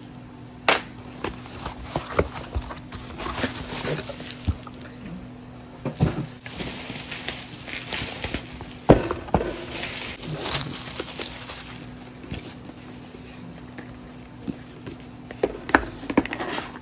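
Hands opening a taped cardboard shipping box and handling the kraft mailer box from inside it: cardboard rustling and scraping, with sharp knocks and thumps scattered throughout.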